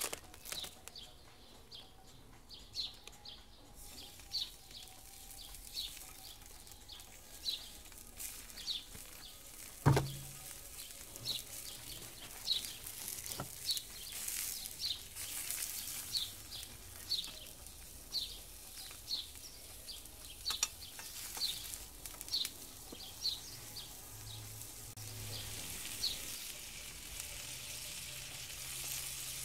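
Sausages sizzling in a frying pan over a small wood fire, the sizzle growing louder in the second half. One sharp knock comes about ten seconds in. A bird repeats a short high chirp slightly more than once a second for most of the time.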